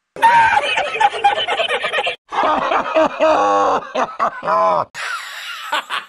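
Cartoon characters' laugh sound effects played one after another, three separate laughs with short breaks between them. The middle laugh ends in quick, rapid-fire pulses, and the last is breathier.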